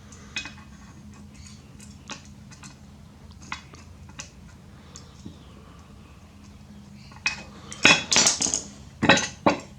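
Metal clinks and taps from a bench vise's steel parts and cross pin being handled during disassembly, scattered and light at first, then a quick run of louder clinks about eight seconds in and another about nine seconds in. A faint steady low hum runs underneath.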